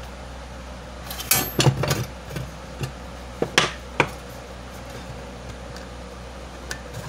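A few short knocks and clatters of things being handled on a wooden workbench, a cluster about a second in, two sharper ones around three and a half and four seconds, then only a faint steady hum.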